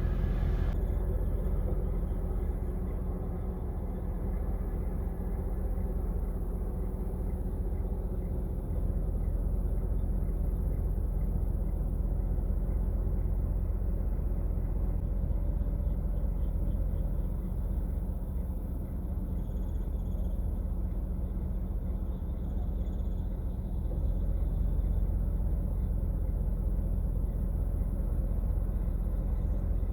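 Steady low vehicle rumble with no clear change or distinct events.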